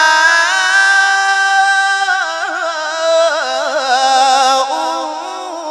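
Male Quran reciter in slow melodic tajwid recitation, drawing out one long held vowel that wavers into ornamented turns and dips slightly lower about halfway through, before the word 'shifa'un' near the end.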